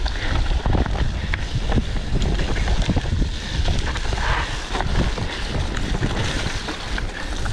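Mountain bike ridden fast along a wet, muddy dirt trail: steady wind buffeting on the microphone over a low rumble from the tyres, with frequent small rattles and knocks as the bike goes over bumps.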